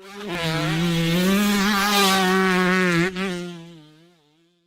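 Dirt bike engine running at a steady high pitch. It fades in, holds with a slight waver, breaks briefly about three seconds in, then fades away.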